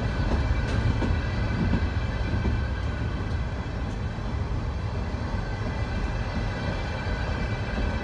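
Freight train of container flatcars carrying open-top trash containers rolling past close by: a steady low rumble of steel wheels on the rails, with a faint steady high ringing and a few faint clicks in the first second.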